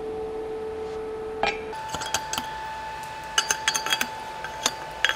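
Slag hammer chipping slag off a freshly laid 7018 cap weld on steel pipe: a run of sharp, light metallic clinks that start about two seconds in and come thick and fast after about three seconds. A steady hum is heard before the chipping begins.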